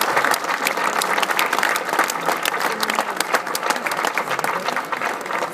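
Crowd applauding, many hands clapping at once and easing off slightly toward the end.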